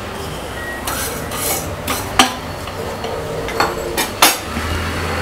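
A utensil scraping and knocking against a stainless steel frying pan as dry-roasted flattened rice (aval) is scooped out, with several sharp metal taps among the rustle of the flakes.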